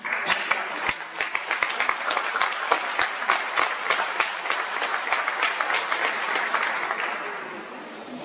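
An audience applauding a choir's performance: many people clapping together, starting suddenly and dying away near the end.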